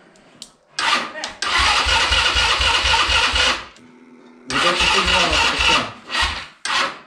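Electric starter cranking the cold ATV Hummer 250's engine in several tries, the longest a little over two seconds, each with an even chug of compression strokes; the engine does not catch. The owner takes it for flooded on old petrol with the choke full on.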